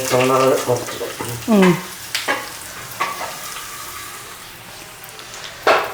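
Rice grains and mustard seeds frying in hot oil in a kadai, a steady sizzle while they are stirred, with a few sharp clicks of the spoon or popping seeds. A voice is heard briefly at the start and about a second and a half in.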